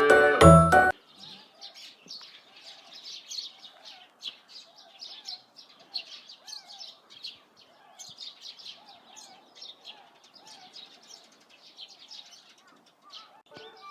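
A flock of swans calling faintly: many soft, overlapping calls repeating, with higher chirps among them. A bit of music stops about a second in.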